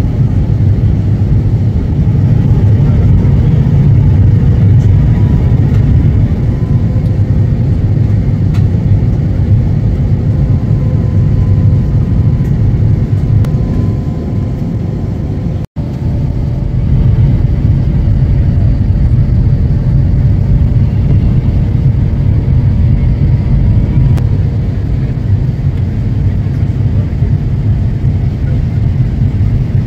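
Steady low rumble of a jet airliner's engines and rushing air, heard inside the passenger cabin in flight, with a faint steady hum over it. It drops out for an instant about halfway through.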